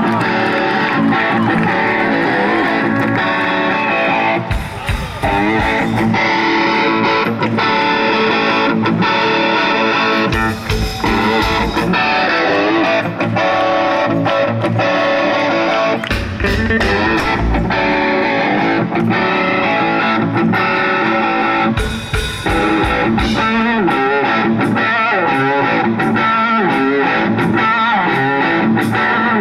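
A rock band playing live, loud, with a single-cutaway electric guitar to the fore over drums.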